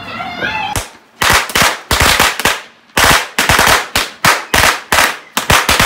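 Fireworks going off at ground level in a rapid, irregular string of loud, sharp bangs, about three a second, starting about a second in.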